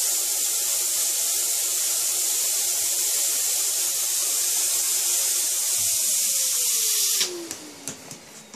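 Vacuum cleaner sucking the air out of a vacuum storage bag of clothes through its hose, a loud steady hiss. About seven seconds in the suction cuts off and the motor winds down with a falling whine, followed by a few light clicks.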